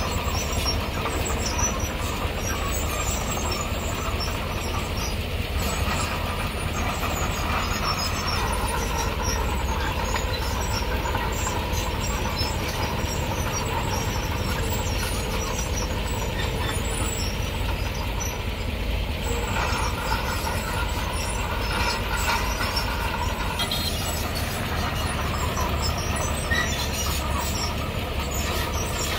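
Heavy earthmoving machinery working: a steady diesel engine drone, with a higher tone in the middle range that shifts in pitch and comes and goes.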